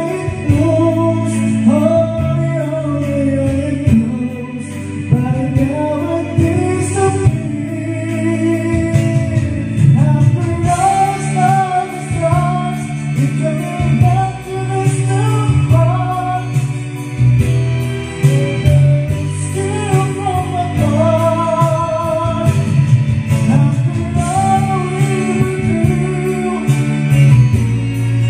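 A karaoke song playing: a slow backing track with a voice singing the melody along with the on-screen lyrics.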